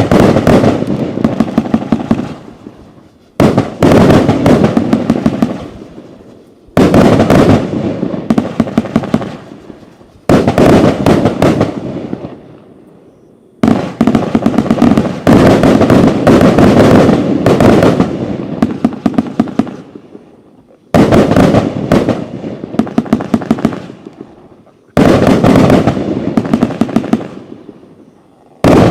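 Riakeo 'Tsunami' firework firing in repeated volleys. Each volley is a rapid string of sharp bangs that fades out over a couple of seconds, and a new one starts about every three to four seconds, with one longer, continuous run in the middle.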